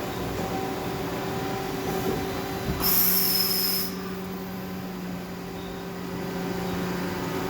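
Nakamura-Tome WY-100 CNC turning center running with a steady hum. About three seconds in there is a one-second burst of hissing, and then a steady low tone that stops near the end.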